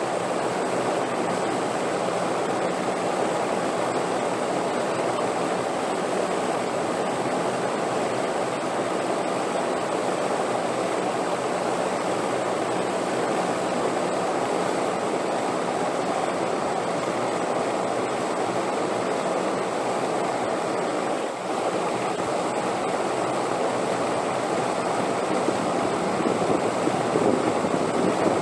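Steady rushing wind, an even noise without gusts or pauses, dipping briefly about three quarters of the way through and swelling a little near the end.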